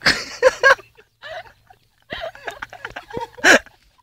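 A man gagging in short bursts of voice as he tries to keep down spoonfuls of lard, the loudest about three and a half seconds in.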